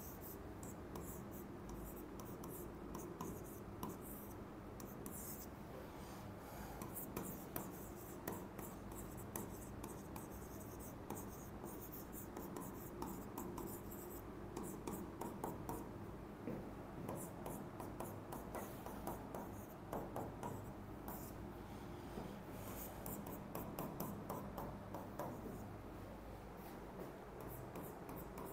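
Handwriting on a surface: short scratchy strokes coming in bursts, over a steady low hum.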